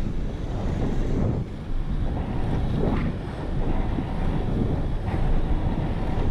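Heavy wind noise buffeting a pole-mounted action-camera microphone carried at about 30 km/h by an inline skater, a low, gusty rumble that never lets up.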